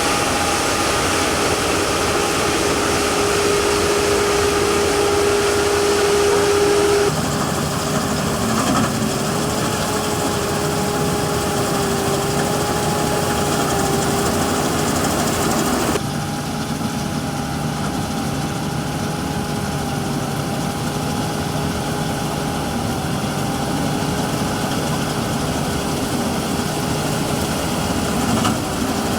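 Combine harvester running steadily, a constant engine drone with a steady whine over it. The sound changes abruptly twice, about seven and sixteen seconds in.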